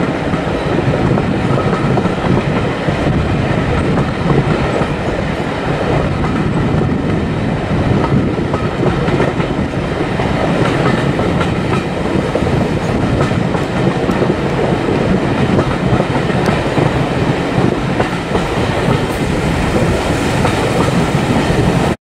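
Class 205 'Thumper' diesel-electric multiple unit heard from a carriage window while on the move: a loud, steady rumble of the train running along the track.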